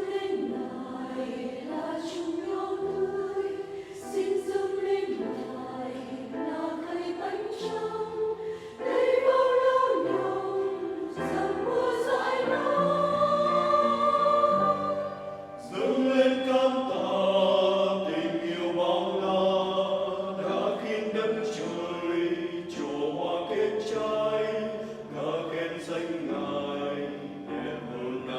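Church choir singing a hymn in several-part harmony, the voices swelling louder about nine seconds in and again a little past halfway.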